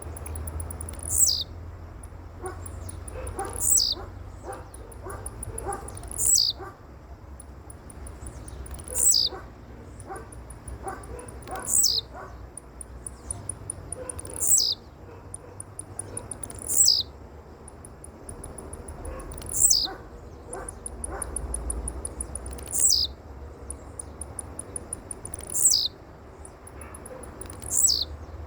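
A bird calling over and over, about every three seconds. Each call is a quick run of high ticks and then a loud high whistle that slides steeply down. There are scattered soft clicks and a low rumble underneath.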